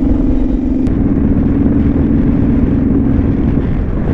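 Motorcycle engine running steadily as the bike rides along, with heavy wind rumble on the microphone. The engine note drops slightly about a second in and fades out near the end, leaving mostly wind.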